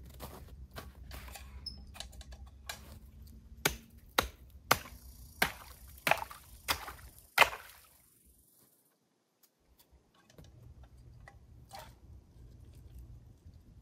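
Hatchet chopping through creek ice: seven sharp strikes, about one every two-thirds of a second, starting about four seconds in. Before them, footsteps crunching in snow.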